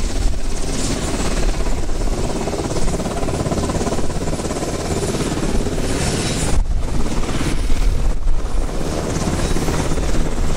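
F-15 fighter's twin jet engines running on the ground, a loud steady noise with a heavy low rumble that dips briefly twice in the second half.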